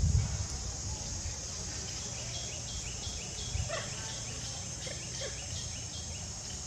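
Forest insects drone steadily in a high band. In the middle comes a run of quick repeated chirps, about three a second, along with a few short calls. A low rumble sounds at the very start.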